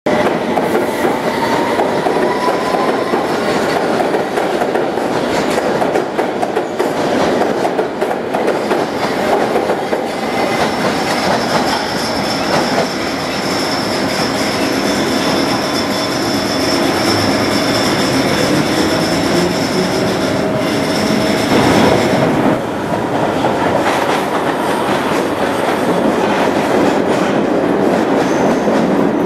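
London Underground S stock and C stock trains running past at platform level: a loud rumble of wheels on rail, clattering over rail joints. A high steady squeal comes in about a third of the way through and stops about three-quarters of the way in, while a lower whine slowly rises in pitch.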